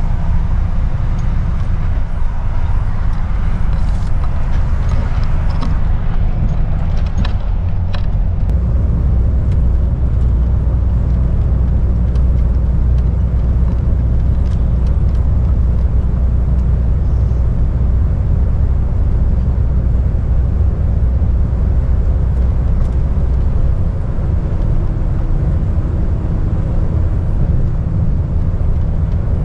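Cab noise of a DAF lorry on the move: a steady low diesel engine drone with road and tyre noise. A few light clicks come in the first several seconds.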